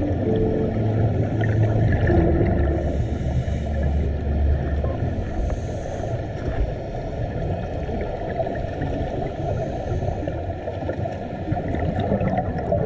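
Underwater sound through a GoPro's housing: a dense, muffled low rumble with bubbling from divers' exhaust bubbles. A few low held tones sound in the first five seconds, then fade.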